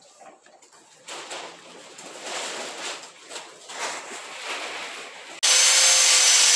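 Irregular scraping and handling noises, then from about five seconds in a loud, steady, high whine of an angle grinder cutting down the mount tabs that hold the fuel tank's rubbers.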